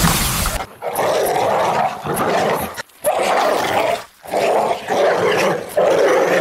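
An animal growling and snarling in a string of rough bursts, each about a second long, with short breaks between them.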